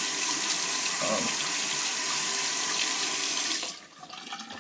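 Water running from a tap into a sink, shut off about three quarters of the way through, leaving a few faint drips and small sounds.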